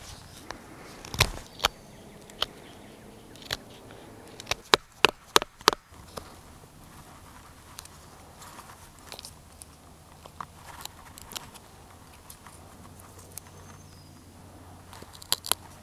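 Mora Companion knife cutting into a wooden stick: a run of sharp cracking cuts, four quick loud ones about five seconds in, then softer shaving and scraping strokes, with two more sharp cuts near the end.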